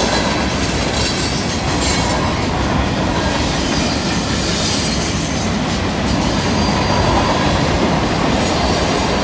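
Freight train's tank cars and covered hoppers rolling past on a curve: a loud, steady rumble of steel wheels on rail, with faint wheel-flange squeal from the curve.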